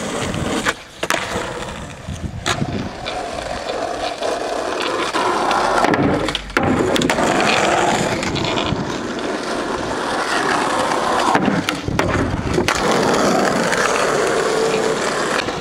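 Skateboard wheels rolling over rough asphalt, a continuous gritty rumble, with a few sharp knocks from the board scattered through.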